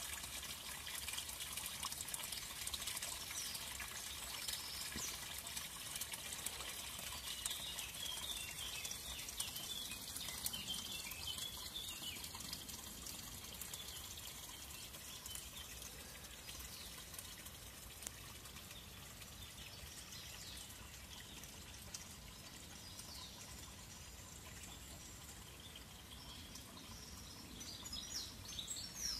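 Thin stream of spring water trickling from a fountain spout into a small pool, faint and steady, growing softer after about half the time as quiet woodland ambience takes over. A few birds chirp faintly near the end.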